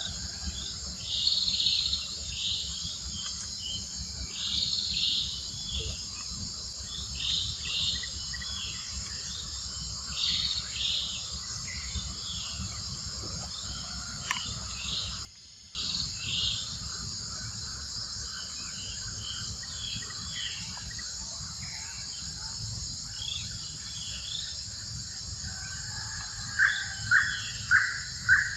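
Steady outdoor insect chorus of crickets or cicadas with repeated short high bird calls. Near the end come four loud, short, evenly spaced calls.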